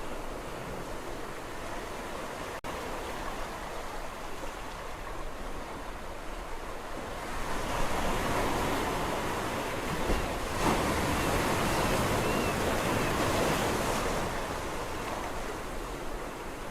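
Sea waves washing onto a shore: a steady surf hiss, with a bigger wave swelling up about halfway through and breaking, then fading back.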